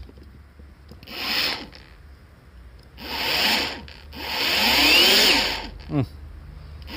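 Ryobi XBRH-18 brushless cordless rotary hammer drill in drill-only mode, run with no load in three trigger pulls: a short blip, then a longer run, then the longest, whose whine rises as the motor spins up and falls as it winds down.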